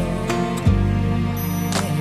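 Music playing: a slow song with long held notes.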